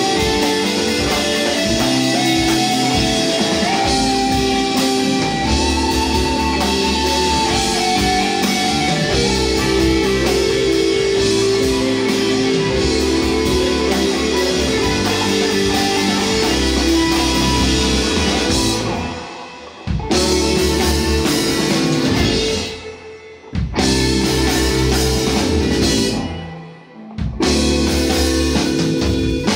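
Live rock band playing an instrumental passage: electric bass, electric guitar and drum kit. In the last third the whole band stops dead three times in quick succession and crashes back in after each short gap.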